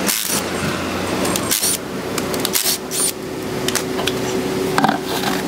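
Cordless impact wrench spinning a car's wheel lug nuts off, with sharp metal clicks and knocks as the nuts come loose and the wheel is pulled free.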